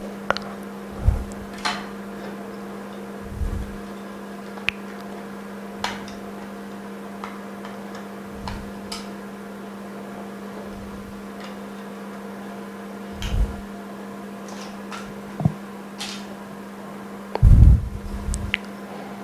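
A steady machine hum runs under light clicks and taps of a glass phone screen being handled and seated in a metal alignment mould, with a few dull knocks, the loudest near the end.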